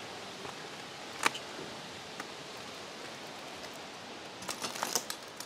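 Footsteps on a floor littered with debris and broken glass: a steady faint hiss with one sharp click about a second in, and a quick patter of small crunching clicks near the end.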